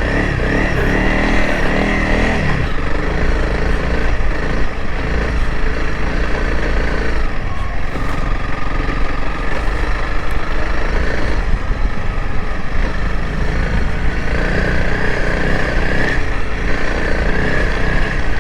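Single-cylinder dual-sport motorcycle engine running steadily while riding on a sand road, with the revs rising in the first couple of seconds.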